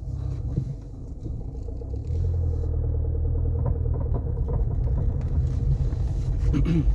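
Peugeot 407 SW being driven, with a steady low road and engine rumble in the cabin and a faint rapid rotational clicking from the front end on turning. The owner takes this clicking for a worn outer CV joint.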